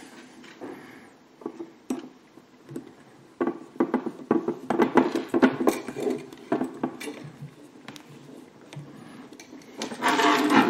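Uneven light clicks and taps of a small metal screwdriver and hard plastic model-kit parts being handled and pressed together while a wire anti-roll bar is fitted into its plastic mount. The taps are densest in the middle.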